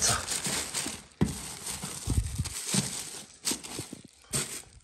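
Clear plastic bags wrapped around firework shells crinkling and rustling as a hand moves them about in a cardboard box, in irregular handfuls with short pauses between.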